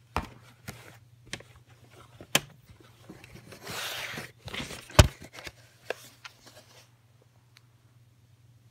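Handling noise from a plastic VHS cassette and its cardboard slip case: scattered clicks and knocks, a short scraping rustle around four seconds in, and a sharp knock about five seconds in, the loudest sound, with a low steady hum underneath.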